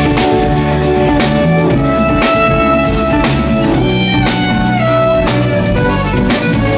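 Live rock band playing an instrumental passage: a violin carries a held, sliding melody over drum kit, bass and guitar.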